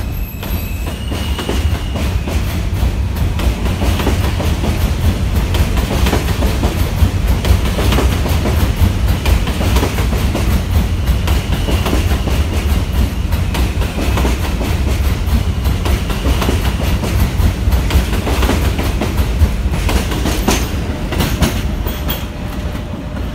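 R160 subway train rolling past and pulling away: a heavy steady rumble with the clickety-clack of wheels over rail joints. A faint wheel squeal comes about a second in and again around twelve seconds in, and the rumble eases off slightly near the end as the last car goes by.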